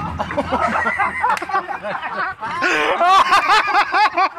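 Hearty laughter: a long run of rapid rising-and-falling cackles, getting louder about halfway through.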